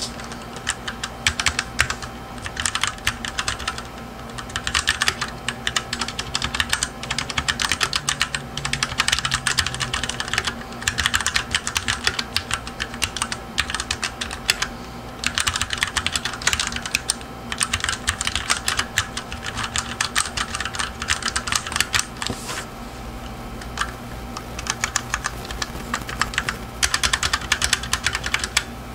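Typing on a full-size mechanical keyboard with Cherry MX Brown switches: rapid runs of key clacks in bursts of a few seconds, with short pauses between them.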